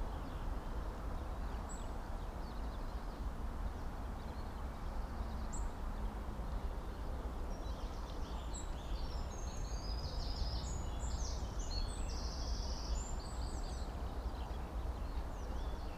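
Steady outdoor noise with a low rumble, like wind on the microphone, and a run of high, short bird chirps from about halfway through.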